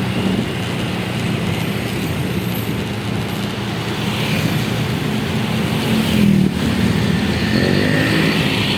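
Steady road traffic noise with a vehicle engine running, and a brief wavering higher tone near the end.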